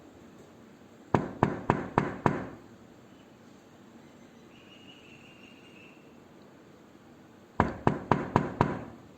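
Knocking on a door: two series of five quick, sharp knocks, about four a second, the first about a second in and the second near the end.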